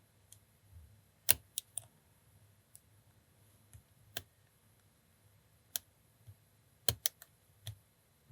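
Lock pick working the pins of a five-pin tumbler lock under tension: scattered sharp metallic clicks, a few single ones and a quick pair near the end, as the picker re-sets pins after the set pins dropped.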